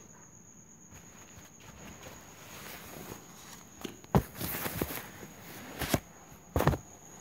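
Handling noise of a phone held over a paper notebook: paper rustling in the middle of the clip and four sharp knocks in the second half, over a faint steady high whine.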